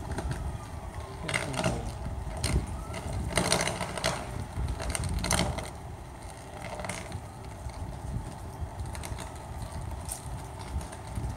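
Electrical arcing on a faulty utility pole: irregular sharp crackles and pops, about a dozen, some in quick clusters.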